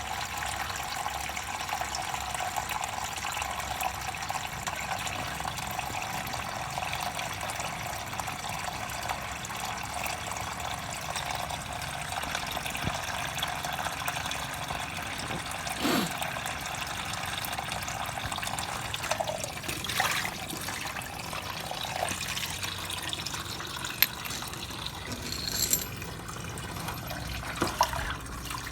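Water-contaminated oil running out of the drain hole of a flooded Honda Rancher ATV's engine, a steady trickling stream that weakens in the second half, with a few small clicks.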